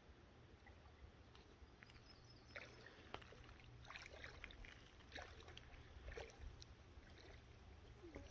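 Near silence: a faint low rumble with a scatter of soft small ticks from a few seconds in.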